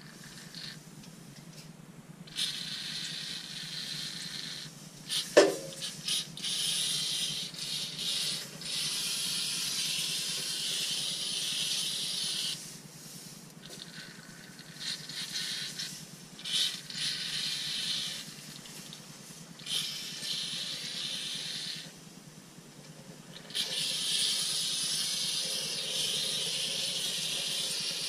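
Aerosol spray can hissing in several long bursts that start and stop abruptly, with a short knock about five seconds in.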